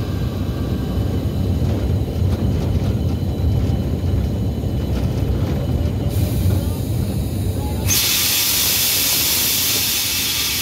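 Train rolling slowly with a steady low rumble; about eight seconds in, a loud hiss of escaping air starts suddenly and cuts off sharply after a little over two seconds.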